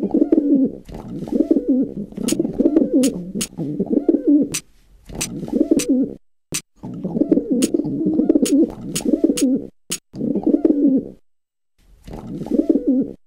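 Pigeons cooing, in a run of low, warbling phrases with short pauses between them. A few sharp clicks are scattered among the coos.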